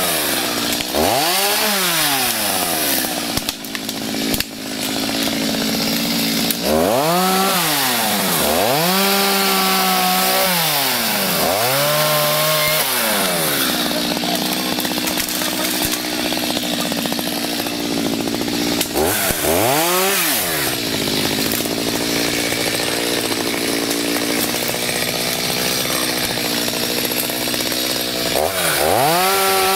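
Two-stroke chainsaw revving up and dropping back about six times, with long stretches of steady running between as it cuts small trees.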